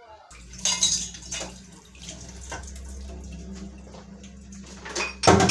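Canned tuna tipped into a hot frying pan of tomato sauce, sizzling and spattering, over a steady low hum; a louder knock comes near the end.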